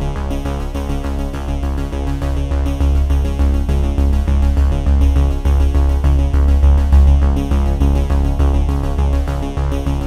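Electronic background music with a steady beat and a heavy synthesizer bass.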